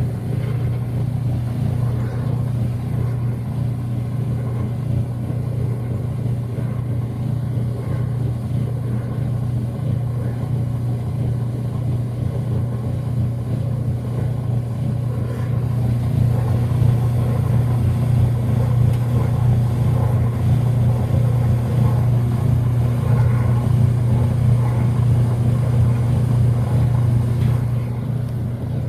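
Whirlpool WTW5300SQ0 top-load washing machine running on its drain setting: a steady motor hum that grows louder about halfway through.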